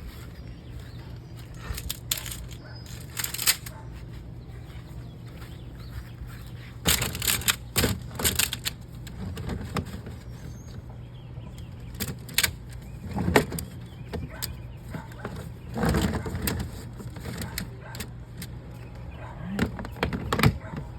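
Irregular clunks, knocks and scrapes of gear being handled and packed away, such as a septic hose going into a plastic storage tote, over a steady low hum.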